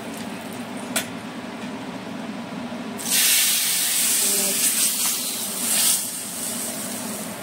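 Hot tempering pan sizzling loudly for about three seconds when a ladle of dal goes into it, starting about three seconds in. Before that, a faint steady hum and one light clink.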